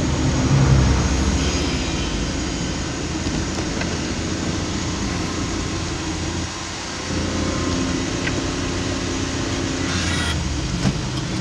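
Engine of the vehicle running steadily, heard from inside the cab, under a constant hiss of rain and tyres on the wet road. A louder swell about a second in as a truck passes close alongside, and the engine note drops briefly about six and a half seconds in before picking up again.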